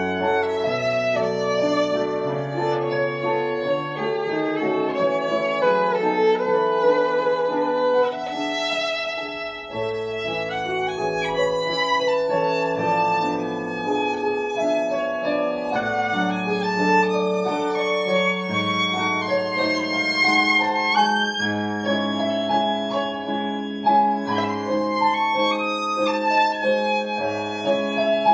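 Violin playing a bowed melody over a recorded accompaniment track that carries low bass notes beneath it.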